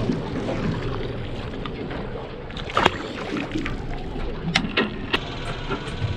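Boat riding on the open sea: a steady wash of water and wind with a low rumble, broken by a few short sharp clicks or knocks near the middle and later on.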